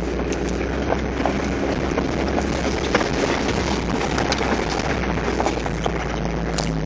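Toyota 4x4 driving over a rough dirt track, heard from inside the cab: the engine runs low and steady under a constant rumble of tyres and chassis, with frequent knocks and rattles as the vehicle rides over bumps.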